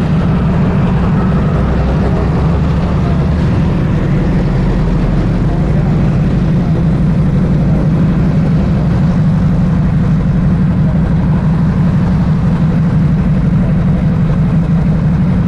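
Keeway Buccaneer 250i motorcycle engine idling steadily while the bike stands stopped.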